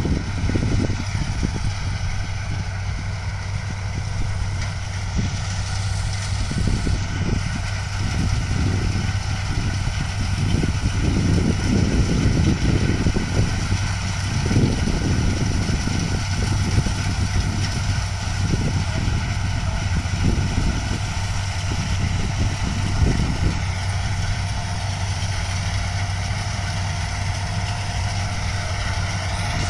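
New Holland TC5 combine harvester's diesel engine and machinery running steadily, with a constant hum and irregular low rumbling swells.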